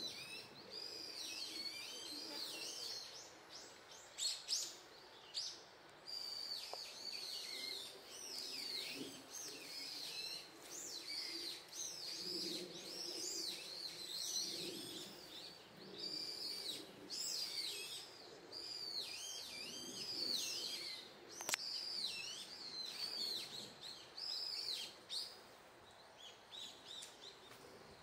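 Several small birds chirping and calling in quick, overlapping high notes, with a sharp click about three-quarters of the way through.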